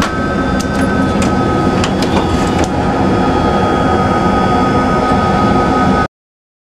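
Boeing 737 flight simulator's jet engine and runway rumble, played through the simulator's sound system, with a steady high whine and a few sharp clicks of the controls about half a second and two seconds in, during a rejected takeoff. The sound cuts off suddenly about six seconds in.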